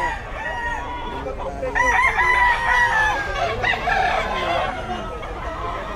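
Several roosters crowing one over another, with clucking between; the loudest, longest crow starts about two seconds in.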